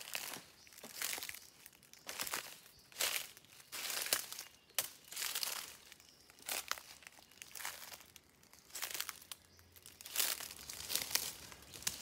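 Footsteps crunching through dry leaf litter, about one step a second.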